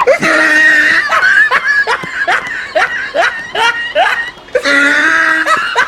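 High-pitched laughter: a run of short rising 'hee' sounds, about two or three a second, with a held tone near the start and again near the end.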